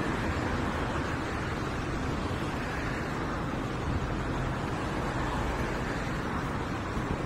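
Steady road traffic noise from cars passing on a multi-lane avenue.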